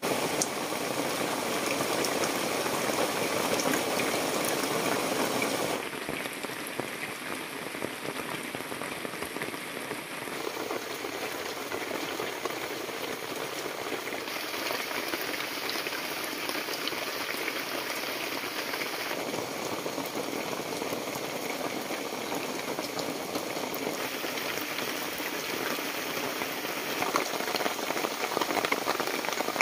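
Heavy rain falling as a steady hiss of dense noise. Its character changes abruptly every few seconds, as if cut between separate recordings.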